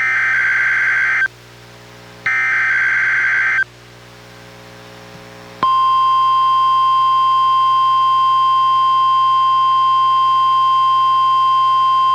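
NOAA Weather Radio SAME digital header bursts, each a harsh buzzing data screech of about a second and a quarter with a one-second gap between them. About five and a half seconds in, the steady 1050 Hz NWR warning alarm tone starts and holds, played through a Reecom R-1630 weather radio's speaker.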